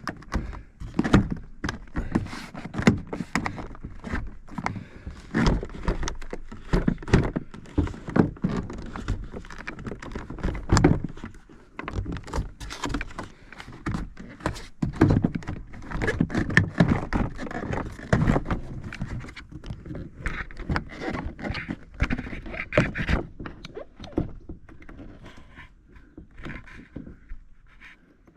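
Irregular knocks, thuds and plastic rattles of an interior door trim panel being hung on the door and worked down into place against the window glass. The handling gets quieter and sparser near the end.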